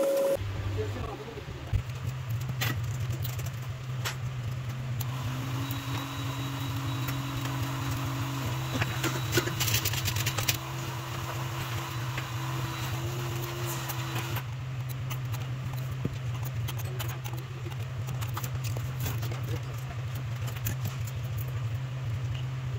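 A steady low machine hum, with scattered small clicks and taps.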